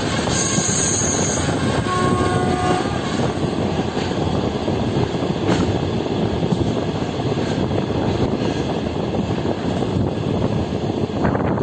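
Train running along the track with a steady, loud rumble and rush of wheel and running noise. A faint brief tone comes through about two seconds in.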